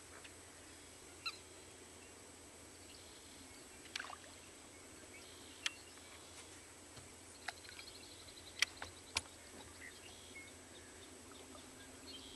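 Quiet open-marsh ambience with scattered short bird calls, some falling in pitch, and a few sharp clicks spread through it.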